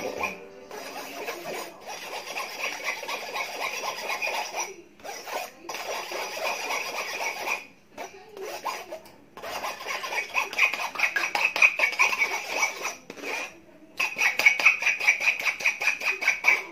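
Spoon scraping and rubbing round inside a fine wire-mesh strainer in quick repeated strokes, pressing leche flan egg mixture through the sieve, with a few short pauses.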